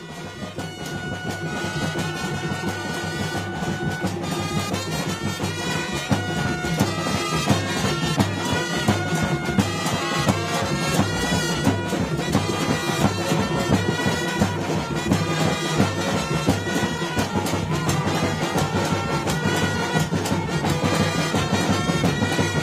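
Live ceremonial music: ngoma drumming with steady, regular strikes under a wind-instrument melody of long held notes. It swells up over the first couple of seconds.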